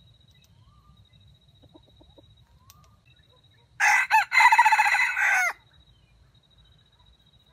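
A junglefowl rooster crows once, about four seconds in: a short crow of under two seconds with a brief break after its opening note.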